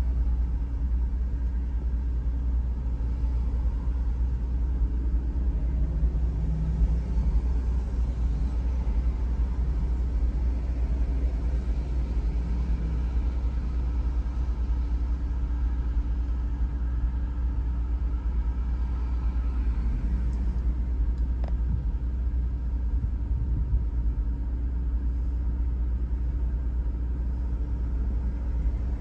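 Steady low rumble inside a car's cabin while it sits idling in stopped traffic, with a faint steady hum.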